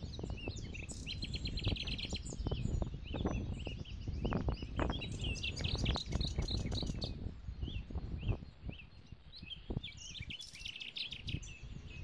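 Small songbirds chirping and trilling, many short high calls and quick trills overlapping, over a steady low rumble.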